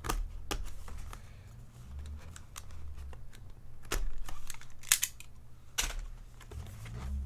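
Cardboard packaging being opened by hand: a seal torn and the box flaps worked, giving scattered crackles and clicks with a few sharper snaps.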